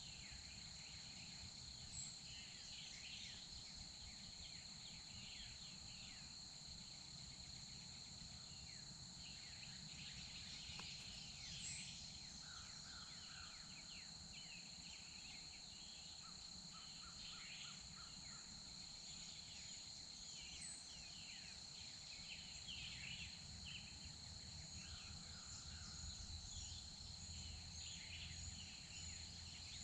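Faint springtime woodland ambience: a steady high insect drone with many songbirds chirping throughout, and a few short, lower calls now and then.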